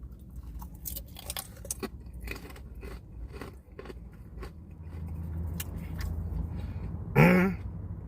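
Close-up chewing of a crispy fried cream cheese wonton dipped in sauce: a run of crisp crunches and wet mouth clicks. A short, loud voiced sound comes near the end.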